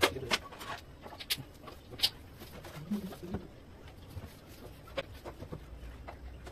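Scattered sharp clicks and knocks of a PVC ceiling panel being handled and pushed up into the ceiling frame, the loudest right at the start.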